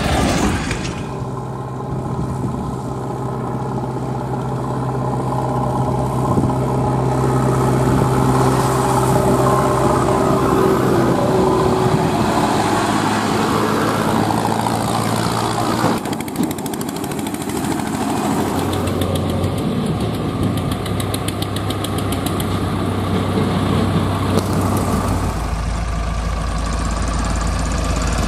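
Diesel engines of farm tractors and a JCB 3DX backhoe loader running steadily at low revs. The engine note changes abruptly a few times.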